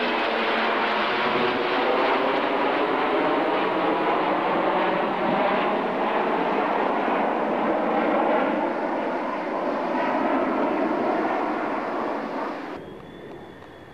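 Jet noise from a formation of three F-15E Strike Eagles passing overhead, a dense, steady roar with a slow sweeping, phasing shimmer as they go by. It drops away abruptly near the end, leaving a faint thin whine.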